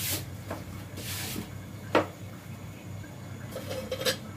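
Kitchen utensils being handled at the stove: a few sharp knocks and clatters, the loudest about two seconds in. Near the end a metal spoon is laid on a steel pot lid with a short ringing clink, over a steady low hum.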